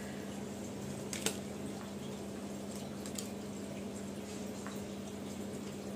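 Tarot cards being handled and laid on a table: one soft tap about a second in and a few fainter ticks after, over a steady low hum.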